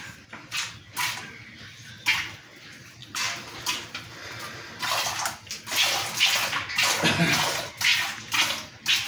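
Jets of milk squirting into a pail as a cow is milked by hand: a hissing spurt with each squeeze, about two a second at first, coming thicker and almost continuous from about five seconds in.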